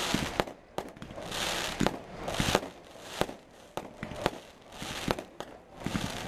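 Fireworks display: aerial shells bursting in an uneven string of sharp bangs, one or two a second, with short stretches of hiss between them.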